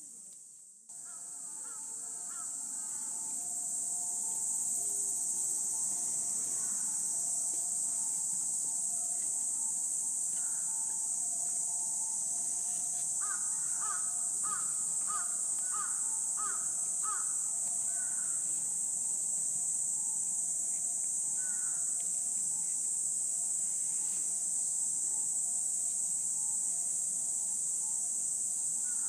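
Insects shrilling in a steady high drone, with a steady two-note hum underneath. Near the middle, a bird calls in a quick run of about seven calls, roughly two a second; a few single calls come before and after.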